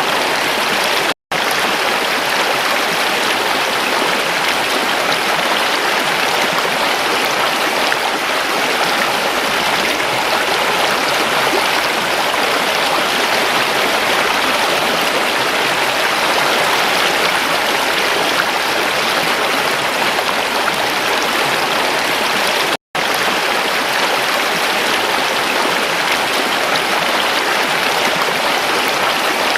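Water stream flowing: a steady, even rush of moving water, cutting out to silence for a split second twice.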